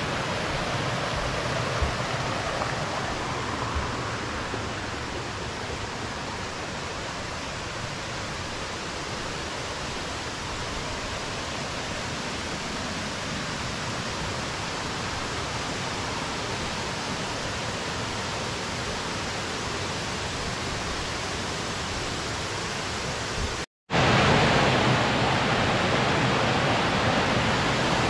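Steady rush of water falling over small limestone cascades into pools. After a brief dropout about three quarters of the way through, it comes back louder.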